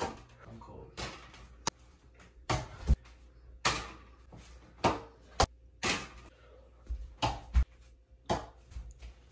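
Small ball thrown again and again at a mini wall-mounted basketball hoop, making a string of sharp knocks, about one a second and sometimes in quick pairs, as it hits the backboard and wall and drops.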